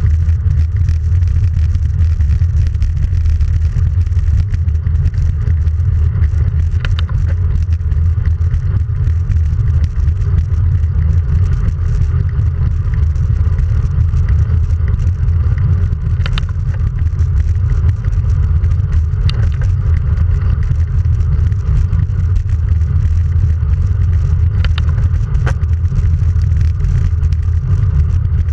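Wind buffeting a handlebar-mounted action camera's microphone on a road bike riding at speed: a steady, loud low rumble, with a few faint ticks now and then.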